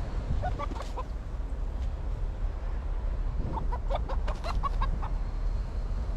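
Chicken clucking in two runs of short notes, one about half a second in and a longer one from about three and a half to five seconds in, over a low wind rumble on the microphone.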